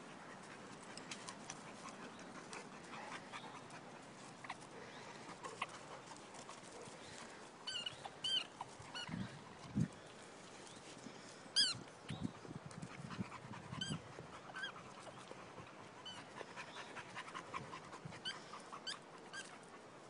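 Dogs, one an XL American Bully, playing rough: faint panting with short high-pitched whines and yelps, coming in small clusters from about a third of the way in and again through the second half.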